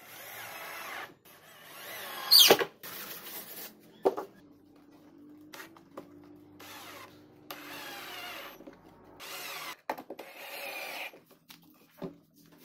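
Cordless drill-driver driving screws into blockboard, run in about half a dozen short bursts with pauses between. A sharp snap about two and a half seconds in is the loudest sound.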